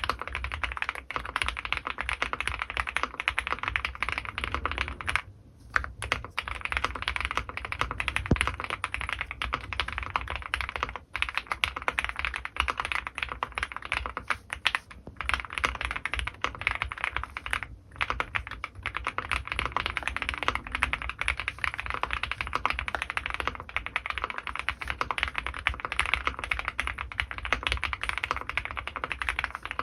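Fast, continuous typing on an Owlab Mr.Suit custom mechanical keyboard with Krytox-lubed Gateron Ink Black V2 linear switches and GMK keycaps, with a few brief pauses.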